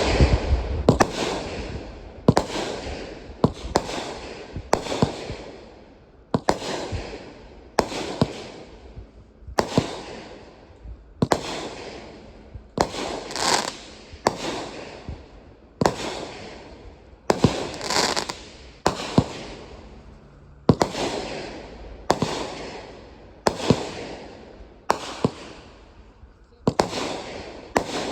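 Consumer aerial fireworks, most likely a multi-shot cake, firing shot after shot at an even pace of about one every second and a half. Each sharp bang is followed by a noisy tail that fades away.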